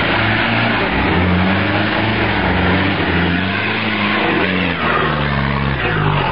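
Toyota 4x4's engine working at low revs as the truck crawls over a rough dirt track, its pitch rising and falling.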